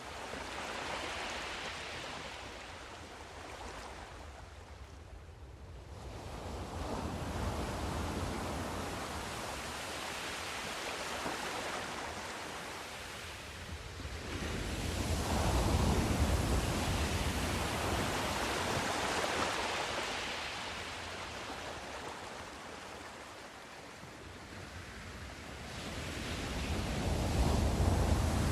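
Sea surf: waves surging in and drawing back in slow swells every several seconds, loudest about halfway through and again near the end.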